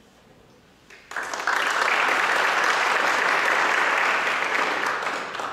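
Audience applauding, starting about a second in, quickly reaching full strength and fading away near the end.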